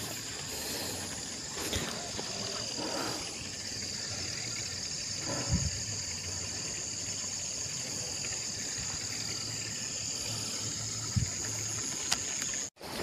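A steady, high-pitched chorus of insects, with a few footsteps on a grassy footpath. The chorus cuts off suddenly near the end.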